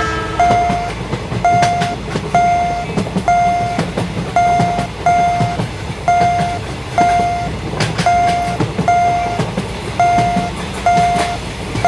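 Japanese railroad crossing warning bell ringing its "kan kan" alarm, a pitched ding repeating about once a second, over the low rumble and wheel clatter of a passing train.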